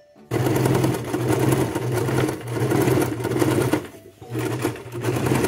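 Electric domestic sewing machine running fast, stitching a pocket onto fabric. It starts abruptly just after the start, stops briefly around four seconds in, then runs again.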